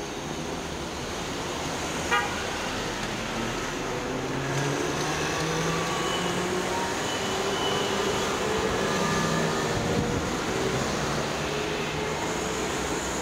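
Road traffic passing through a city intersection with a steady rush of engines and tyres, growing louder in the second half as a van drives by close. A brief sharp toot sounds about two seconds in.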